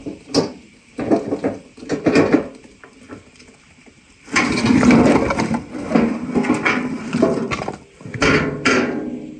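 Metal wheelbarrow loaded with firewood logs rattling and knocking as it is pushed. Then a long run of wooden clatter and thuds as the logs are tipped out onto the ground, with a few last sharp knocks near the end.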